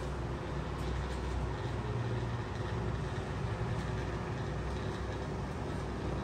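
Steady low rumble and faint hiss of background room noise inside a shop.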